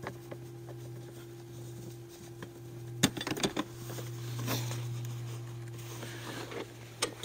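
Clicks and knocks of the grass topper being handled and taken off a reel mower's grass catcher, with a cluster of knocks about three seconds in and another click near the end, over a steady low hum.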